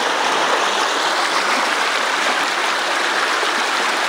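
Loud, steady rush of a swollen, flood-high creek pouring over rocks and a log jam.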